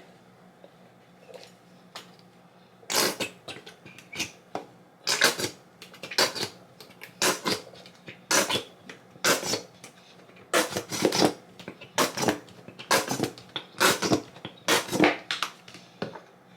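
Seasoned onions and mustard being mixed in a bowl: about a dozen short scraping, clacking strokes, roughly one a second, starting about three seconds in.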